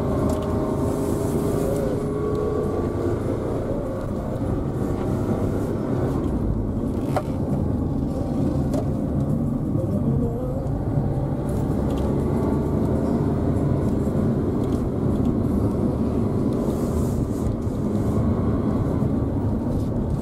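Car engine and tyre noise heard from inside the cabin while driving: a steady running sound whose engine note shifts a little in pitch now and then.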